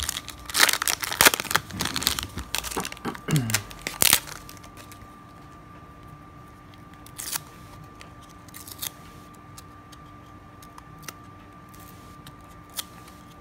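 Foil wrapper of a trading-card wax pack crinkling and tearing for about four seconds, then a few faint clicks as the stiff chrome cards are handled and slid against each other.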